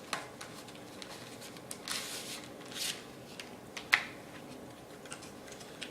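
Packaging being opened and handled by hand: short rustling and scraping swishes, with one sharp click about four seconds in.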